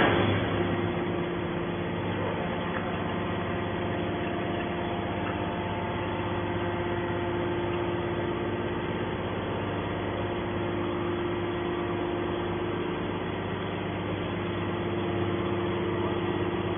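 Hydraulic can baler's power unit running with a steady hum that holds an even pitch throughout.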